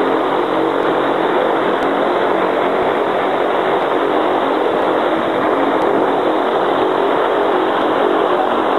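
Zeppelin NT airship's piston engines and propellers running, a steady loud drone with no change in pitch.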